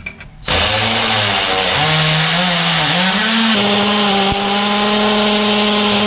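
Electric drill boring a hole into a wall, starting abruptly about half a second in. Its motor whine climbs in pitch over the first few seconds, then holds steady.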